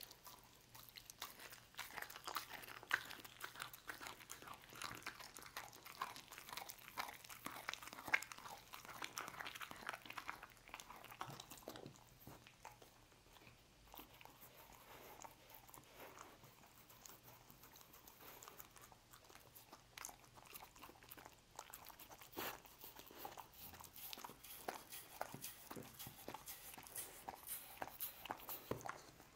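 A dog chewing and licking pieces of roast beef: a quick run of wet smacks and crunchy bites, sparser for several seconds in the middle and busier again near the end.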